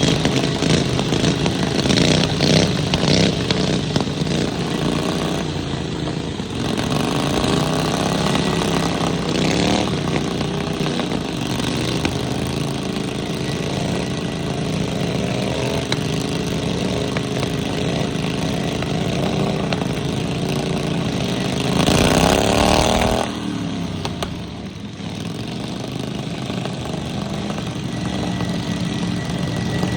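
Lawnmower engines running throughout, revving up several times, with the loudest rev about three-quarters of the way through that drops back suddenly.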